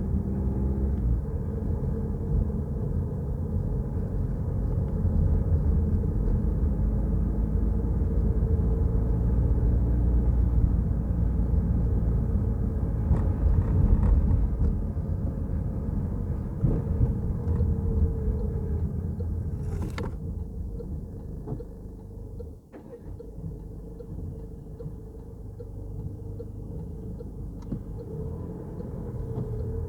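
Peugeot Rifter driving on the road: a steady low road and engine rumble. A sharp click comes about two-thirds of the way through, after which the rumble drops in level for a few seconds and then builds again.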